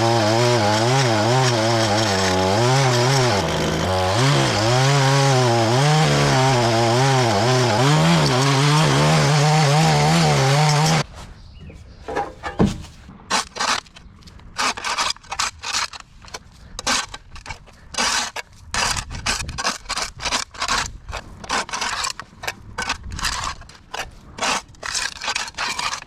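Two-stroke engine of an Echo PAS power head with edger attachment running hard, its pitch rising and falling as the throttle and load change, then cutting off abruptly about eleven seconds in. After that come irregular short scraping and crackling sounds.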